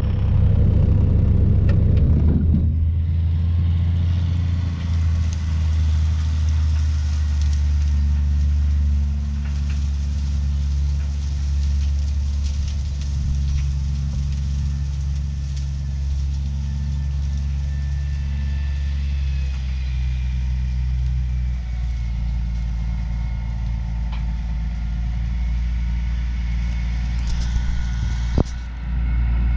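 Heavy engine running steadily at constant speed, a low drone, with a single sharp knock near the end.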